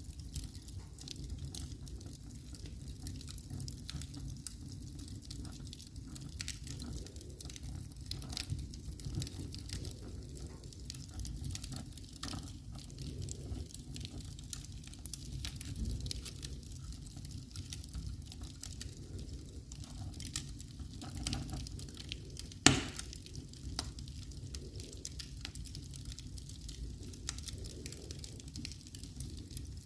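Wood fire in a fireplace crackling steadily over a low rumble, with many small pops and one sharp, much louder pop about three quarters of the way through.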